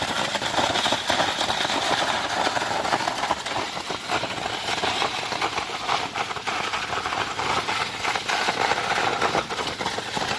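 Hydrodemolition robot at work: a high-pressure water jet blasting concrete, a steady dense hiss with rapid crackle, over a running engine.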